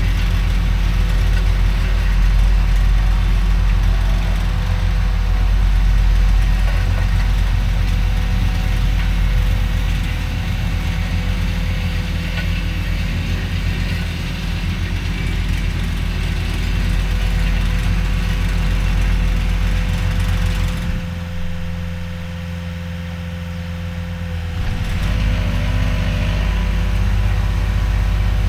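Diesel engine of a CAT 289D3 compact track loader running steadily while working a vibratory roller attachment. About two-thirds of the way through it drops lower and quieter for a few seconds, then picks back up.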